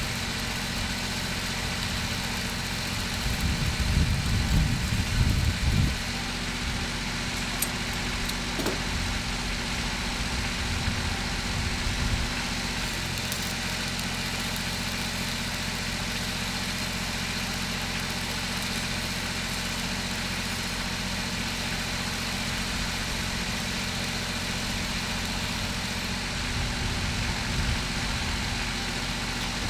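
Engine idling steadily, with a louder low rumbling stretch about three to six seconds in.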